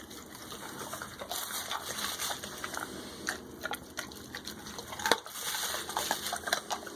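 A Great Dane chewing raw chicken, bones and all: wet, sloppy chewing broken by sharp crunches of bone, like eating a biscuit, with one loud crunch about five seconds in.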